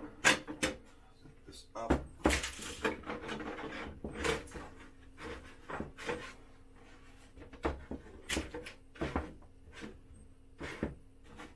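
Plastic body panels of a 1/5-scale RC truck being handled and fitted onto its roll cage: irregular clicks, knocks and rubbing of plastic against plastic.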